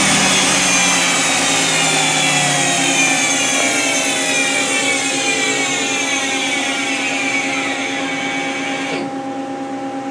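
1997 Mazak Quick Turn 20 CNC lathe spindle spinning down from 5,000 RPM, its whine falling steadily in pitch. The high rush cuts off suddenly about nine seconds in, leaving a steady machine hum.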